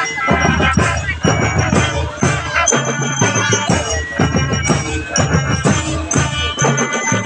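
Marching drum band playing a tune: bass drums beating under horns, with marching glockenspiels ringing high notes over the top.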